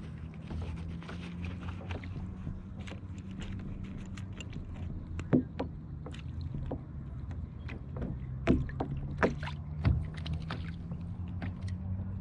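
Handling sounds on a fishing kayak: a string of sharp clicks and knocks, the strongest about five, eight and a half and nine seconds in, over a steady low hum.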